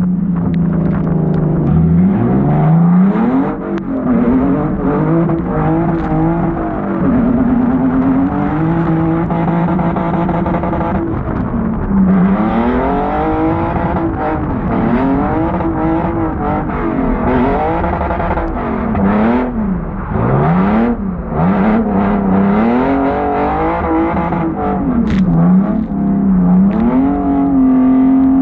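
Hyundai Genesis Coupe engine revving up and down again and again as the car is drifted on a wet surface. The pitch sweeps repeatedly between low and high, sometimes holding high briefly.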